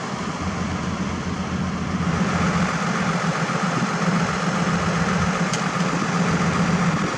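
Heavy diesel engine idling steadily, a little louder from about two seconds in.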